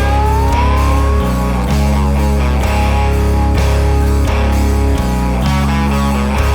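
Background rock music with guitar and a steady bass line, loud and continuous.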